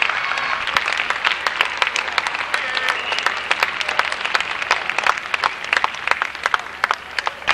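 Crowd applauding: many hands clapping at once, steady, thinning a little about seven seconds in.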